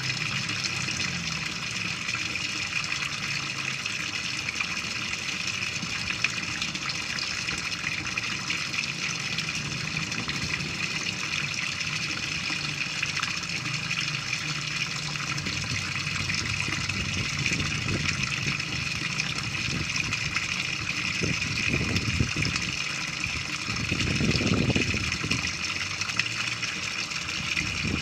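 Water pouring from a pipe into an IBC fish tank, splashing steadily on the surface. A few low rumbles come through near the end.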